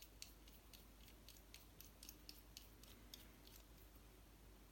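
Faint, irregular clicks and ticks from a small metal 3D-printer hot end with a finned heatsink being turned over in the fingers, dying away about three and a half seconds in.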